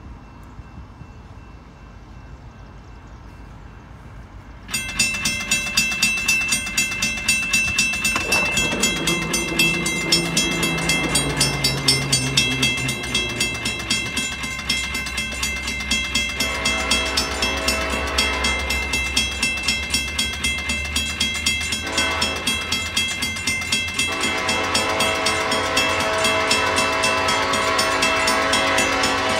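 Railroad grade-crossing bell starts ringing rapidly about five seconds in as the crossing activates, with a falling whine from the gate mechanism as the arm lowers. The approaching Union Pacific intermodal train then sounds its horn in two long blasts, the second starting about 24 seconds in.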